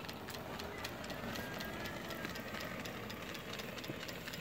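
Stuart Williamson model vertical steam engine running steadily on steam, with a light, quick, regular ticking from the eccentric rod working on its eccentric sheave.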